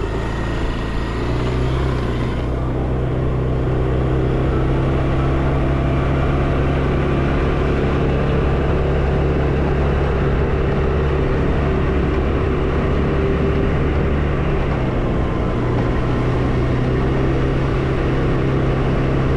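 Vehicle engine running at a steady speed while on the move, its drone holding level in pitch. A hiss in the highs fades about two and a half seconds in.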